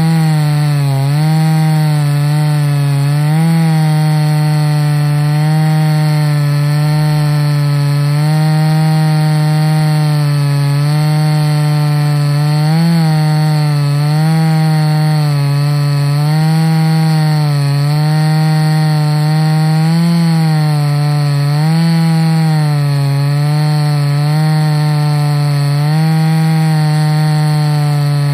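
Ported Husqvarna 288XP two-stroke chainsaw at full throttle on an Alaskan chainsaw mill, ripping a slab lengthwise through an oak log. The engine note stays high and steady, wavering slightly up and down every second or two as the chain works through the cut.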